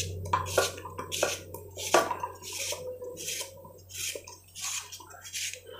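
Kitchen knife cutting a peeled yellow cucumber (dosakaya) held in the hand, the chunks dropping into a metal cooking pot: a run of short, sharp cuts and taps, about two or three a second and irregularly spaced.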